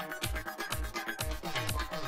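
Background music: an electronic dance track with a steady kick drum beating about twice a second.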